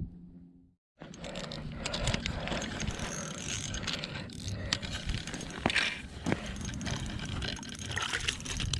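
Fishing reel being cranked, its gears and handle giving a continuous rattling and ticking, as a line is reeled up through the ice hole.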